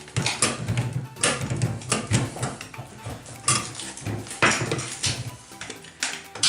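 Metal tools clinking and scraping against old metal valve trim and its retainer ring: a run of irregular sharp clanks.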